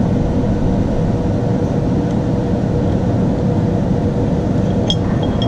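Steady low machine drone with a constant hum. Near the end come a few light metallic clinks as the clutch's pressure plate and parts are handled.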